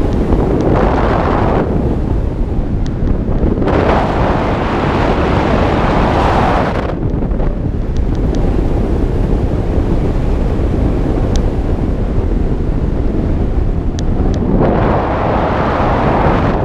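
Wind rushing over the microphone of a camera mounted on a tandem hang glider in flight: a loud, steady rush, with a hissier surge about a second in, a longer one from about four to seven seconds, and another near the end.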